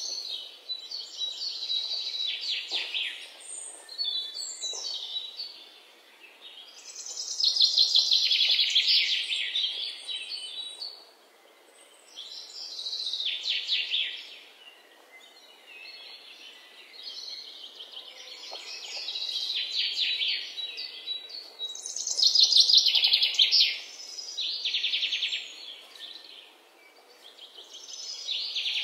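Birds singing: repeated high-pitched phrases of fast trills and chirps, one every two or three seconds with short pauses between.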